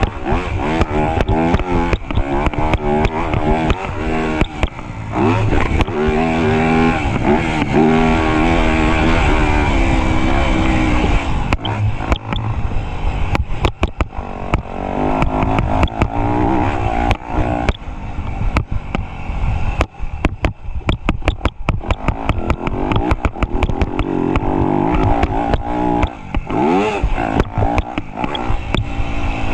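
Motocross dirt bike engine revving up and falling back over and over as the bike is ridden around the track, with many sharp clicks and knocks throughout.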